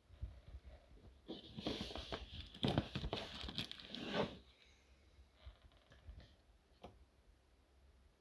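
Dishwasher: about three seconds of clattering and hissing, starting a little over a second in, then a few faint clicks.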